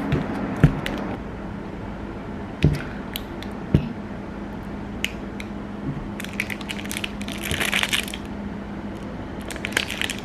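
Quest protein bar's foil-lined plastic wrapper being torn open and crinkled by hand: scattered crackles, with a longer crinkling rustle about two-thirds through and another near the end. A few low knocks in the first four seconds.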